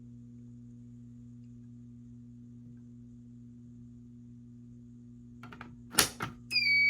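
A low steady electrical hum. Near the end a BT12LX fire alarm pull station is pulled: a few faint clicks, then two sharp clacks. Within half a second the fire alarm system starts sounding a steady high-pitched tone.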